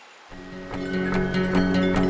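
Background music with strummed guitar, starting about a third of a second in after a faint hiss.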